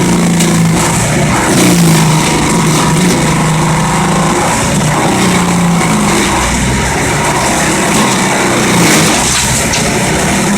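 Wood chipper running loudly and continuously, its engine hum shifting up and down in pitch over a steady rushing noise.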